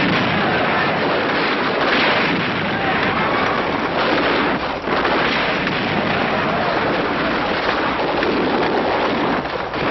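A dense, continuous din of battle sound: rapid gunfire crackling with explosions.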